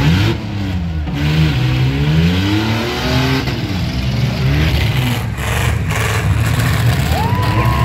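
Demolition derby pickup truck engines revving, their pitch rising and falling again and again. A steady high tone comes in near the end.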